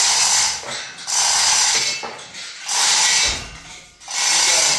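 A hand-worked ratchet clicking in repeated strokes, a burst of clicks about once a second.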